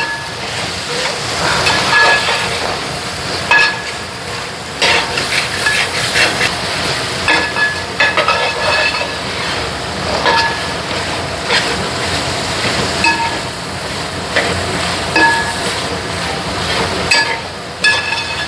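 Mutton and onion-tomato masala frying in coconut oil, a steady sizzle. A spoon stirs it, scraping and clinking against the metal pan every second or two.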